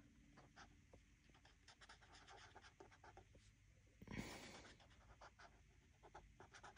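Faint scratching of a felt-tip marker tip on paper, colouring in with many short dabbing strokes. A short breathy rush of noise about four seconds in.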